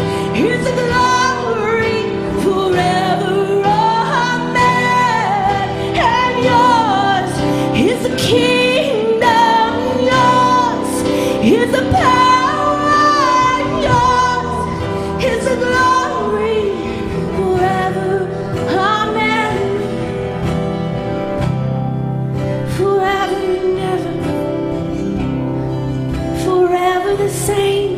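Live worship band playing a gospel song: a woman singing with vibrato over sustained keyboard chords, with occasional drum hits.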